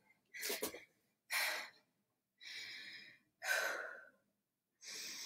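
A woman breathing hard after a round of burpees: a series of heavy breaths in and out, about one a second, as she catches her breath and her heart rate comes down.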